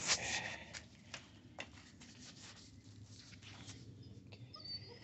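Belgian Malinois puppy snuffling and moving close to the microphone, loudest in a burst right at the start, followed by scattered light clicks and a brief high squeak near the end.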